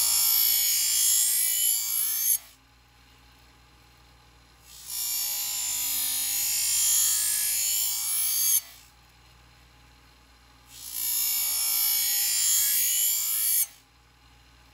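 Knife blade pressed against the spinning deburring wheel of a scissor-sharpening machine: a high scraping hiss in three passes of about three seconds each, with short quiet gaps between. The grinding raises a burr along the edge.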